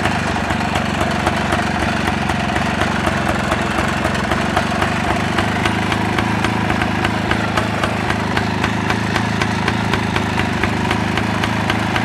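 Small motorcycle engine idling steadily, with a regular ticking running through it.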